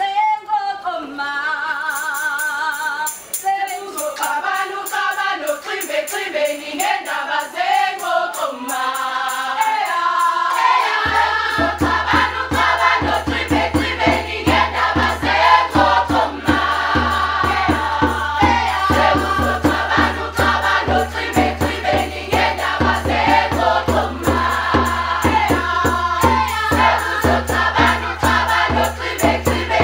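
A mixed choir singing together, the voices wavering in long held notes. About eleven seconds in, a steady low hum and an even beat join the voices and the singing gets a little louder.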